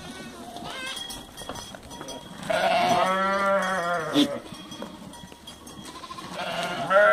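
Goats bleating: one long wavering bleat about two and a half seconds in, followed at once by a short sharp click, then a second bleat starting near the end.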